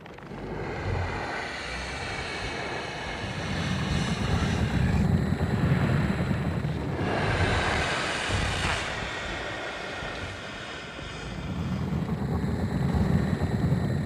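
Sound effect of the film monster Iris calling: long, shrill cries over a low rumble. They swell from about four to nine seconds in, drop back, and rise again near the end.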